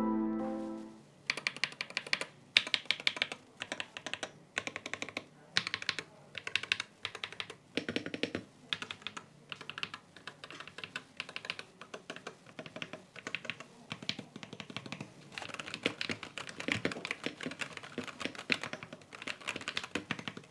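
Typing on a LUMINKEY Magger 68 HE mechanical keyboard with magnetic Hall-effect switches and an aluminium case: fast, irregular runs of key presses with short pauses between bursts. Music fades out in the first second.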